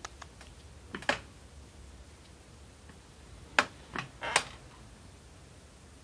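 A few sharp clicks: two about a second in, then three more about four seconds in, over a low steady background.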